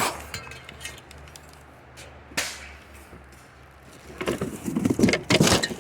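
Scrap and junk being handled and pulled from a pile: a single sharp knock a little over two seconds in, then a second or so of clattering and scraping near the end.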